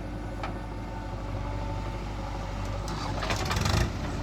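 Diesel engine of a backhoe loader running steadily, with a loud rough burst of noise lasting about a second, three seconds in.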